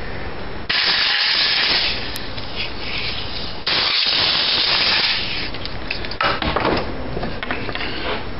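Compressed-air blow gun hissing in two blasts of about a second and a half each, blowing chips out of the freshly tapped threads in an alternator's mounting hole. A few short knocks and scraping of handling follow.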